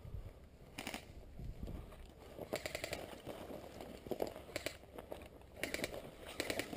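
Airsoft guns firing in short bursts of rapid, sharp clacks, about five bursts, over rustling from brush.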